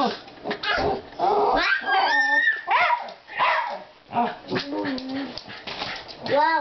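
Dog vocalizing: a rapid string of short yips, whines and barks, several of them gliding up and down in pitch.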